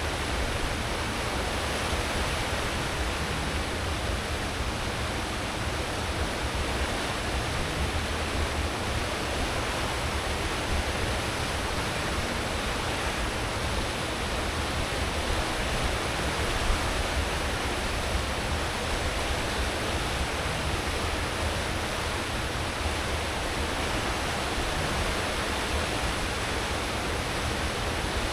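Cruise ship's wake churning and rushing steadily behind the stern at full speed, over a deep, steady rumble of the ship's engines and propellers.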